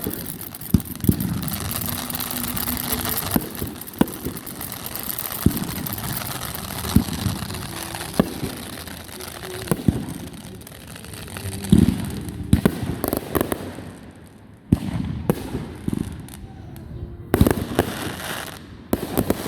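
Fireworks going off: a long run of sharp bangs and pops at irregular intervals, several seconds apart at times and in quick clusters at others, over a steady hiss.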